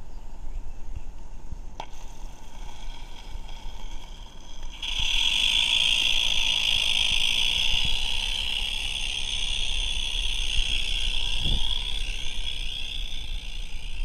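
Regner Vincent vertical-boiler live-steam model locomotive hissing steam: a loud, steady hiss starts suddenly about five seconds in and carries on as the locomotive runs.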